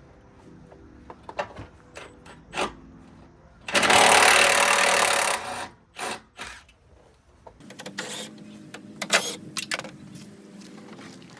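Hand tools clicking and knocking on car body parts during a front-end teardown. About four seconds in, a loud burst of rushing noise lasts nearly two seconds.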